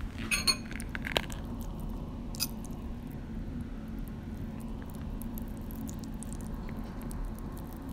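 A person chewing ramen noodles close to the microphone: many small mouth clicks and smacks, which sound really gross.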